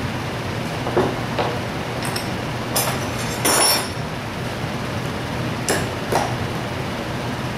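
Small metal parts of a Zenoah G270 engine clicking and clinking against each other and the wooden workbench as they are picked up and set down, about six short knocks with a longer clatter about three and a half seconds in, over a steady background hiss.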